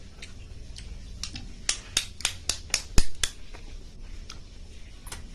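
A metal spoon clicking against a cooked freshwater snail's shell, about eight sharp clicks at roughly four a second, the loudest about three seconds in.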